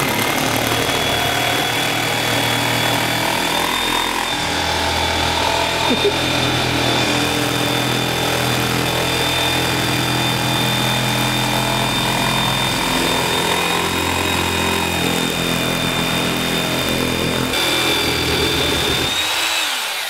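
Corded jigsaw running continuously as its blade cuts along a traced line through a thin white panel, with a steady high whine; the motor speed dips and recovers slightly along the way, and it winds down near the end.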